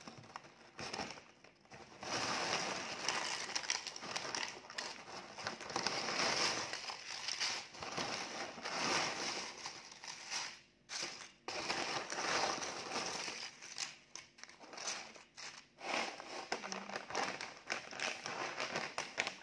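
Crinkling of a chip bag and the dry rustle and crackle of purple ube chips tumbling onto a wooden tray and being shifted by hand, in dense runs with a short pause midway.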